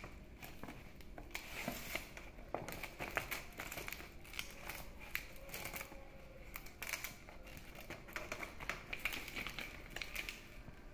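Dong leaves crinkling and rustling as hands fold them into a square wrapper for bánh chưng, with faint scattered crackles throughout.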